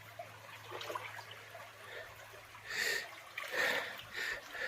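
Faint trickle of the Kziv stream, then in the second half four short noisy sounds in quick succession.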